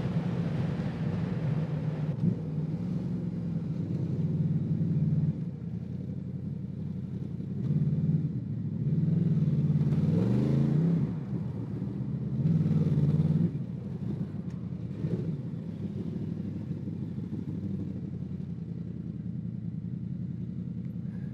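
Honda VFR800 VTEC's V4 engine through a loud, patched-up exhaust held together with scrap metal and jubilee clips. It runs steadily at low speed, with three louder bursts of throttle in the middle, the pitch rising during one of them.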